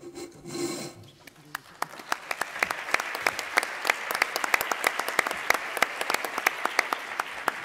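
Audience applauding: many hands clapping that build up about a second and a half in, keep going steadily, and thin out near the end.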